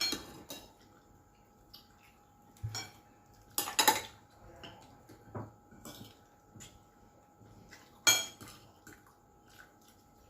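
Cutlery and dishes clinking and knocking as people eat, in scattered short clinks with louder ones about four seconds in and again about eight seconds in.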